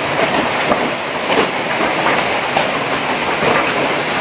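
Heavy hailstorm with rain: large hailstones pelting down in a dense, loud clatter of many small impacts.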